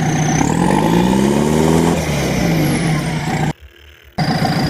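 Engine-revving sound of a toy construction vehicle, its pitch rising and falling over and over. It cuts out briefly about three and a half seconds in.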